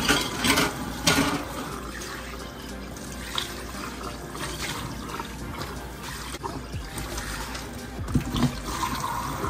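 Kitchen tap running into a stainless steel sink while dishes are rinsed, with a few sharp clinks of dishes about a second in and again near the end.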